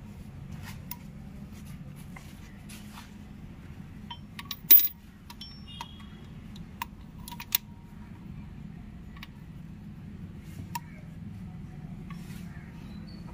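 Scattered light metallic clicks and clinks of tappets and tools being handled while tappets are fitted into an engine block. One loud metal clank about a third of the way in rings briefly. A steady low hum runs underneath.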